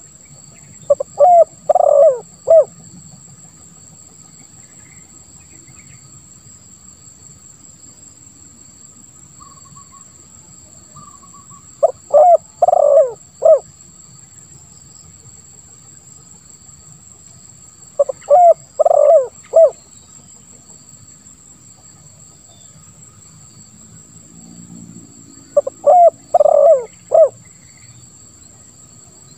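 Spotted dove (tekukur) cooing: four phrases several seconds apart, each a quick run of short coos around a longer middle note and ending on a single clipped 'kuk'. This is the call style fanciers call 'kuk 1' with a 'ngeruk' voice. A steady high-pitched insect drone runs underneath.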